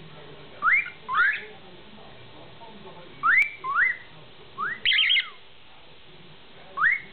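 Cockatiel whistling its song: short upward-sliding whistled notes, mostly in pairs, with pauses between and a quicker cluster of notes about five seconds in.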